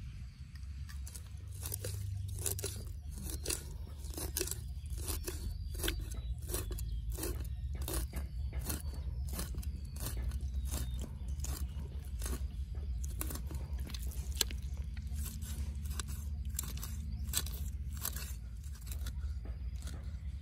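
A meat cleaver chopping through a whole raw fish on a wooden chopping board: repeated crunching strokes through scales, skin and bone, about two a second, starting about a second in.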